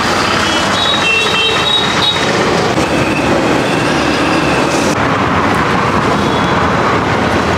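Steady din of road traffic passing close by, with faint thin high-pitched tones about a second in and again midway.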